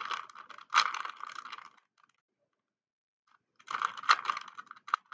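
Plastic 3x3 Rubik's cube being turned by hand, its layers clicking and clacking in quick runs: a burst for about two seconds, a pause, then another burst near the end.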